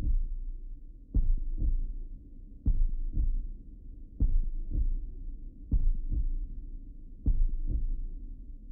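Heartbeat sound effect: low double thumps, one pair about every second and a half, over a steady low hum.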